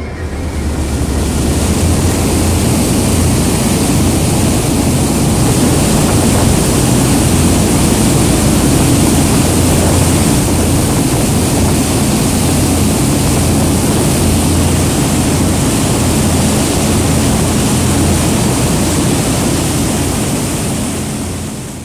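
Lifeboat running at speed: a steady engine drone under a loud, unbroken rush of wind and churning water, fading out at the very end.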